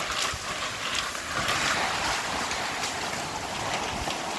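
Strong gusting wind rushing and buffeting, with scattered sharp slaps of loose material flapping in it.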